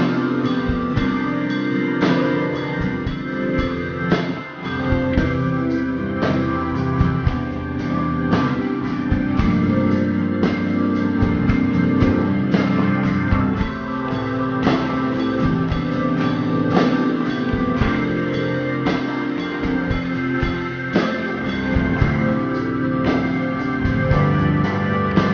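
Background music with a steady drum beat, guitar and organ or keyboard.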